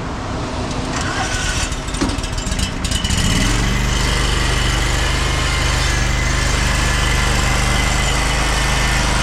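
A machine's engine starts about three seconds in, its pitch rising as it catches, then runs steadily.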